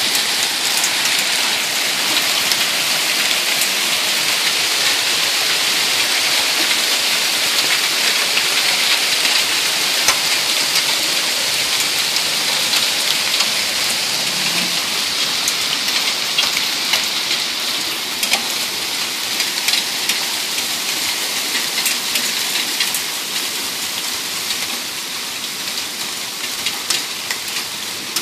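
Heavy rain with hail coming down: a steady dense hiss with scattered sharp ticks of impacts, easing slightly toward the end.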